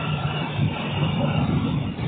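Diesel railcar running along the track, heard from on board: a steady low rumble of engine and wheels.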